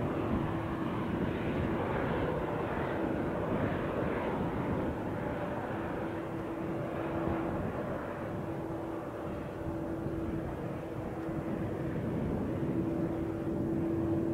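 Boeing 787 Dreamliner's GEnx turbofan jet engines running as the airliner rolls past: a steady rushing roar with a faint steady hum that fades in and out.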